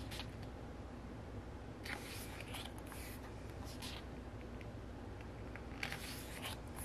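Glossy pages of a photobook being turned by hand: several short, faint paper swishes and rustles, spaced a second or two apart.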